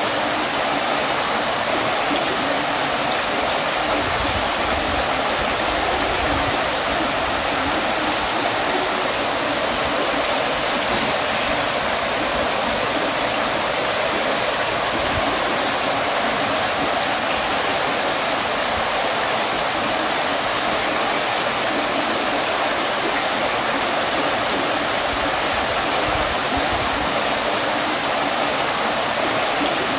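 Water fountain splashing steadily: falling water as a continuous, even rush, with a single short high click about ten seconds in.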